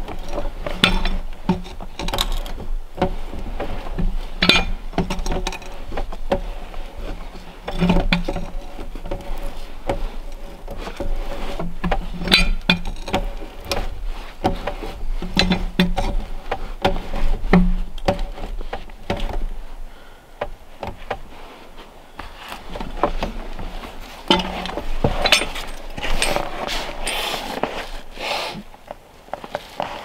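A steel-hooked Logox peavey biting into and levering a log, with irregular knocks, clinks and scrapes of metal on wood. A low background hum stops about twenty seconds in.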